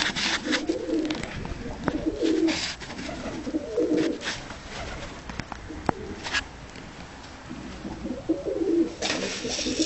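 Dönek (Turkish tumbler) pigeons cooing in repeated low warbling phrases, with short scratchy bursts of noise now and then.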